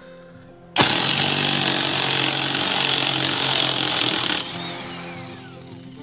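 A handheld cordless drill motor starts abruptly about a second in and runs at full speed for about three and a half seconds. It is then released and spins down with a falling whine.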